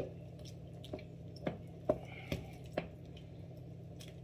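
Thick creamy chicken sauce bubbling in a frying pan, with soft pops and plops about every half second to a second as it thickens, over a low steady hum.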